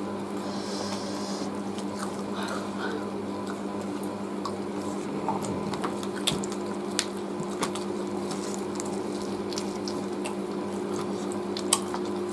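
Wet chewing and lip-smacking of people eating roast chicken with their hands, with scattered small clicks, over a steady low hum.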